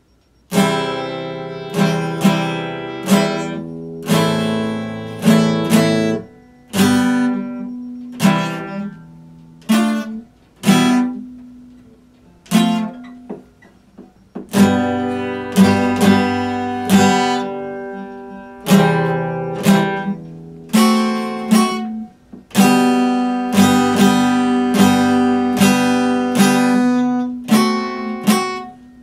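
Epiphone acoustic guitar being strummed, chords struck about once a second and left to ring. The playing starts just after the beginning, dies away briefly around the middle, then picks up again with quicker strumming.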